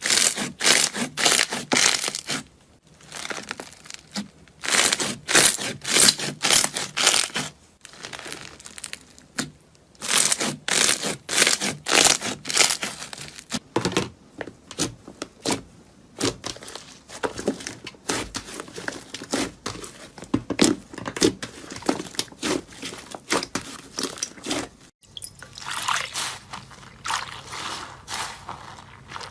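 Slime being squeezed and poked by hand, making runs of quick, sharp wet clicks and pops, several a second, in bursts with short pauses.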